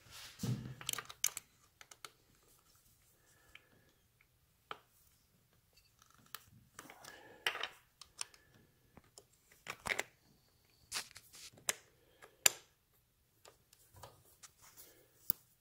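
Hand-tool work on an Amal Mk 2 carburettor's float-bowl screws: irregular clicks, taps and scrapes of a screwdriver and small metal parts, loudest about twelve seconds in.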